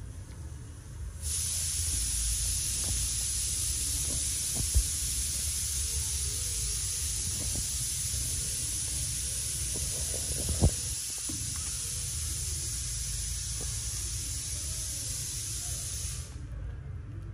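A steady high-pitched hiss starts abruptly about a second in and cuts off abruptly near the end, over a low background rumble. Two sharp knocks stand out in the middle.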